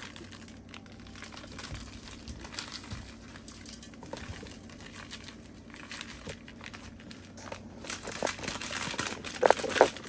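Crinkling and rustling of a plastic spice-mix packet being handled and opened, in irregular bursts of small crackles that grow louder and busier near the end.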